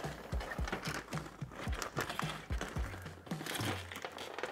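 Aluminium foil crinkling and rustling as it is pulled open by gloved hands, over background music with a steady beat.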